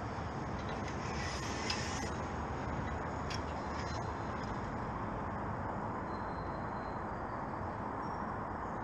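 Steady outdoor background rumble and hiss, with a couple of faint clicks in the first few seconds.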